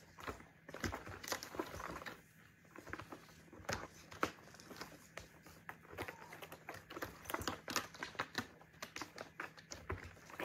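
Kittens scrambling and clawing on a cat scratcher slide: irregular scratching and crinkling, with the patter and light knocks of paws landing.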